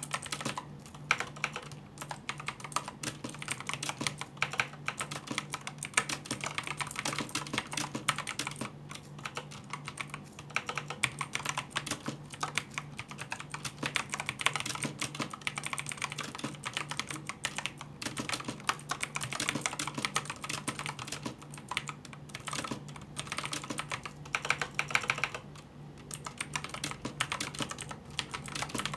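Fast, continuous typing on a Signo KB-769 aluminium mechanical keyboard with Kailh Blue clicky switches, each keystroke a sharp click, with a couple of brief pauses.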